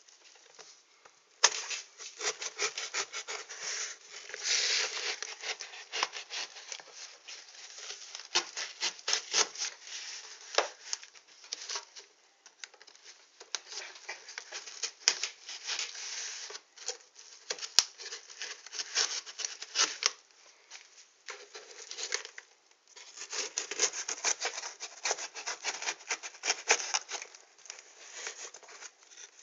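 Cardboard parcel being opened by hand: irregular scraping, tearing and rustling of cardboard, packing tape and paper wrapping, starting about a second and a half in, with a few short pauses.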